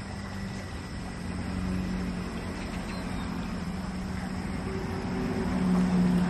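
A motor vehicle's engine droning nearby, a steady low hum that grows louder and is loudest near the end, over a faint steady hiss.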